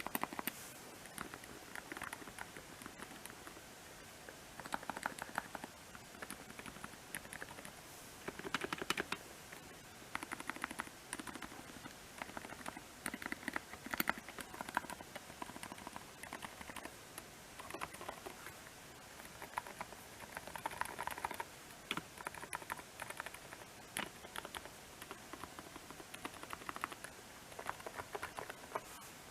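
Typing on a custom mechanical keyboard with Kailh Box Deep Sea Silent linear switches, a foam-filled resin case and MA-profile keycaps: bursts of rapid keystrokes with short pauses between them.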